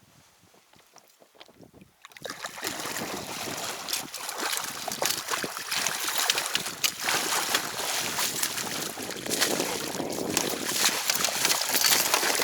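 Water splashing and sloshing close by as a hooked pike thrashes at the surface while being brought to the landing net, starting suddenly about two seconds in.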